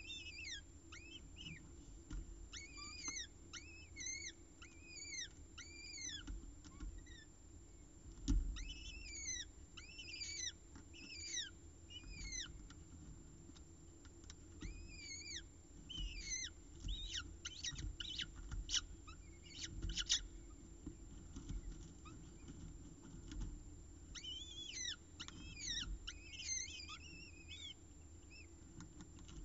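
Downy peregrine falcon chicks giving high-pitched begging calls while being fed. The calls are quick arched notes that rise and fall, coming in bursts of several at a time. A thump sounds about eight seconds in, and a few sharp clicks come later, over a faint steady hum.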